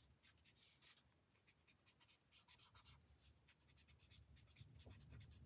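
Faint scratching of a marker nib on paper, in many quick, short shading strokes.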